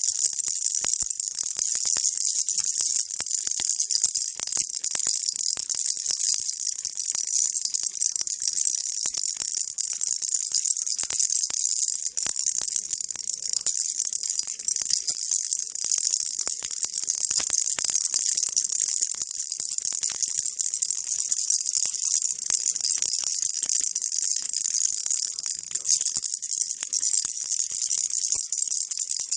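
Baby rattle shaken steadily and without pause, a dense, high-pitched rattling kept up as white noise.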